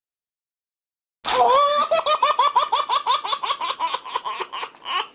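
A laughing sound effect: a high-pitched, rhythmic 'ha-ha-ha' laugh of about four to five pulses a second, starting a little over a second in and gradually fading.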